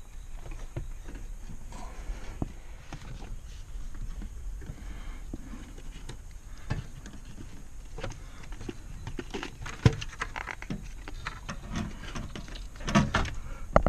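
Scattered clicks and knocks of tools and car parts being handled while the dashboard support structure is fitted back into the car, with a sharp knock near ten seconds in and a cluster of louder knocks near the end.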